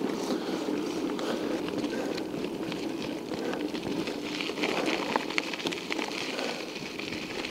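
Mountain bike in motion: a steady rush of tyre and wind noise with scattered light clicks and rattles.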